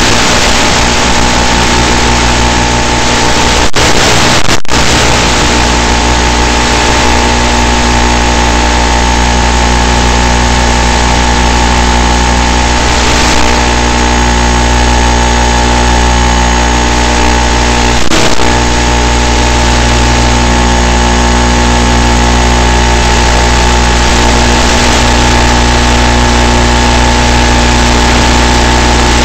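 A loud, steady hum at a fixed pitch that does not rise or fall, broken by brief crackles about four seconds in and again about eighteen seconds in.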